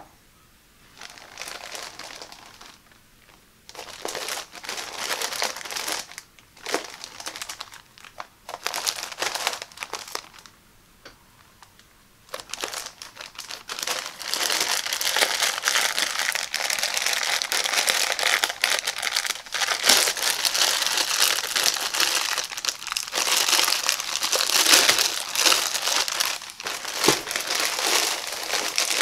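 Thin clear plastic packaging bag crinkling as hands handle it and pull it open around a stack of towels. The crinkling comes in short bouts with pauses at first, then runs on continuously and louder from a little under halfway through.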